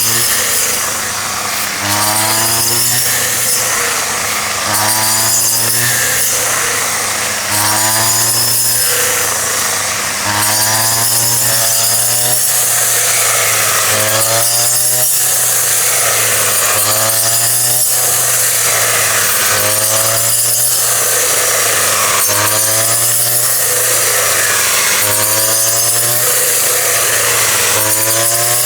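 Small motor-driven machine running loud and steady, its pitch dipping and climbing back about every two seconds as it is repeatedly loaded.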